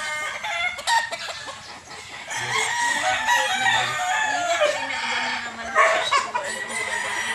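Gamefowl roosters crowing and clucking, several calls overlapping.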